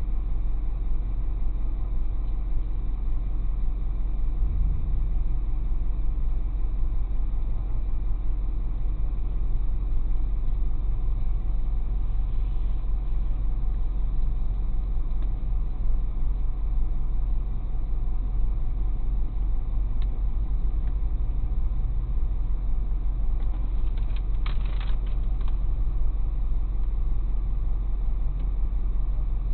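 Tow truck engine idling steadily with a low rumble, heard from inside the cab.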